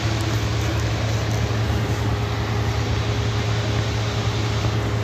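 A steady low mechanical hum with an even rushing noise over it.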